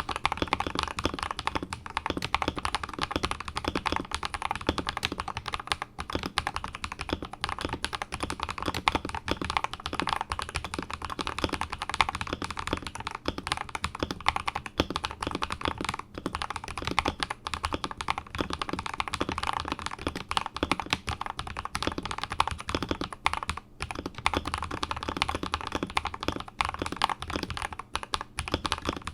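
Continuous fast typing on an Akko 5075S mechanical keyboard with Akko Rose Red linear switches lubed with Krytox 205g0, mounted on a polycarbonate plate: a dense, steady stream of key clacks.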